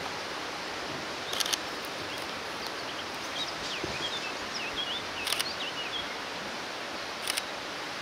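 Steady rushing noise, with a small bird twittering briefly in the middle and three short, sharp clicks spaced a couple of seconds apart.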